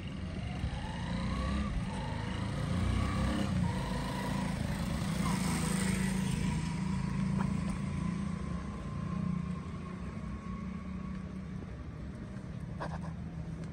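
Low rumble of a motor vehicle on the road, swelling through the middle and easing off later, with a faint whine that rises early on and then holds steady.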